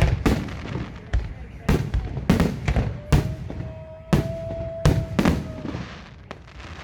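Fireworks salute: an irregular run of sharp bangs, about ten of them, with a steady whistling tone held for a couple of seconds in the middle.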